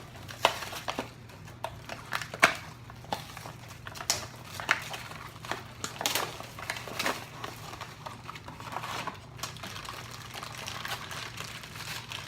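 Funko Mystery Minis blind boxes being opened by hand: cardboard and foil packaging rustling and crinkling, with scattered sharp clicks and snaps, the loudest about half a second and two and a half seconds in.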